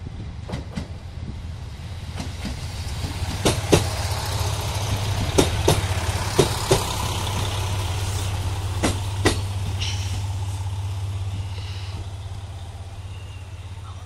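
A JR Kyushu KiHa 200 diesel railcar passes close by. A low engine drone builds and then fades, and four pairs of sharp wheel clacks ring out as the bogies cross a rail joint.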